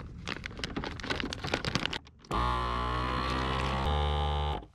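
Plastic freezer bag crinkling and rustling with small clicks as a fish fillet is packed into it. About two seconds in, a louder steady humming tone starts, shifts lower near the end and cuts off suddenly.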